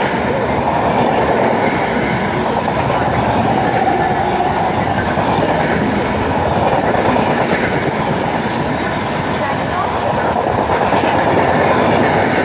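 Lokshakti Superfast Express passing through at speed without stopping: a loud, steady noise of its coaches' wheels running on the rails, unbroken throughout.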